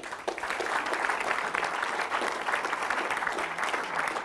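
Audience applauding: dense, steady clapping from a lecture-hall audience.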